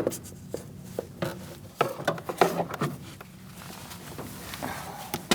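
Chevrolet HHR plastic door trim panel being pried away from the door with a trim tool: a string of irregular sharp clicks and snaps as the panel's retaining clips and plastic edge give.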